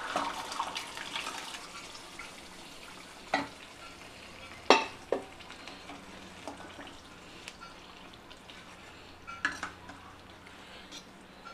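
Boiled urad dal poured into hot fried masala in a steel pan, sizzling at first and fading over the first couple of seconds. A steel ladle then stirs it, clinking sharply against the pan a few times, loudest about five seconds in.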